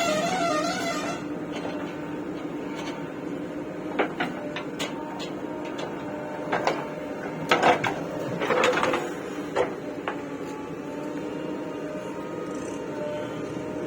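Backhoe loader's diesel engine running steadily, with several sharp knocks and clanks in the middle.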